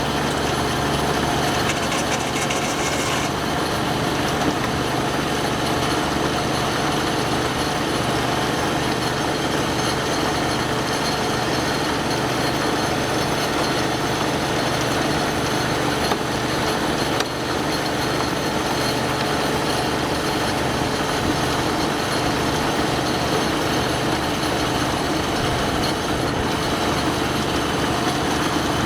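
Old sawmill's power engine running steadily, with no log being cut.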